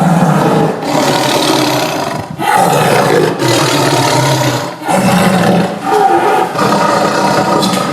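Tiger roaring: a run of loud, harsh roars, one after another with short breaks between them.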